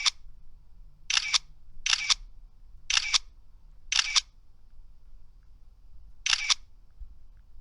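Camera shutter firing six times at uneven intervals, each a quick double click.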